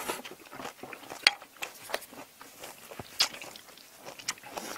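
Close-miked eating: chewing and crunching of jajang noodles and kkakdugi radish kimchi, with scattered sharp clicks and smacks, the loudest about a second in and again around three seconds in.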